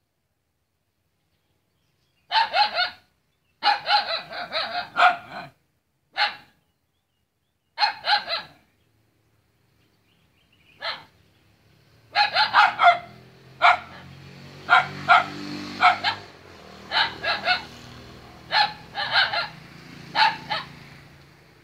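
A dog barking in short runs of sharp barks with pauses between them, starting about two seconds in. From about halfway a low steady hum sits underneath the barks.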